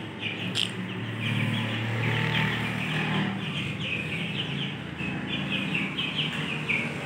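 Chicks peeping over and over, a quick run of short high chirps, several a second. A low hum sits underneath through the middle.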